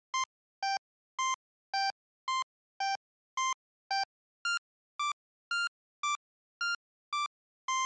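Simple electronic beeping jingle: short synth-like notes about two a second, hopping between a few pitches in a little tune, ending on a longer held note.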